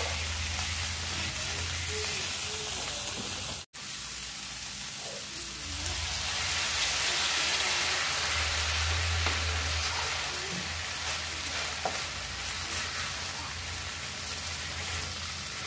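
Chicken and vegetables sizzling in a frying pan in a soy-and-hot-sauce glaze as the sauce cooks down and thickens, stirred and scraped with a wooden spatula. The sound cuts out for an instant a little under four seconds in, and the sizzle is a bit louder from about six seconds on.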